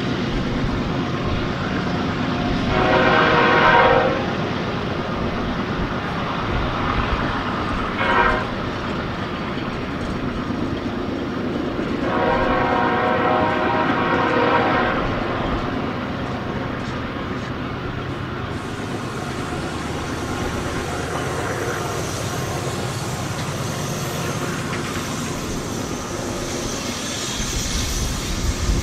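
BNSF diesel freight locomotive sounding its horn three times: a blast of over a second, a short toot, then a longer blast of about three seconds. Underneath runs the steady rumble of the diesel engines and the train.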